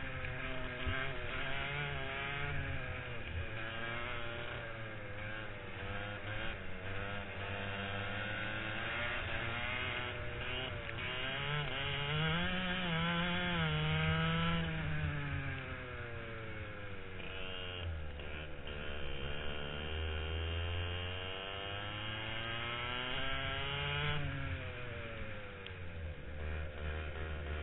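Racing kart's 100cc two-stroke engine heard on board, its buzzing pitch climbing steadily down the straights and falling away as it slows for corners, several times over. A high, steady whine rides on top during the two longest climbs.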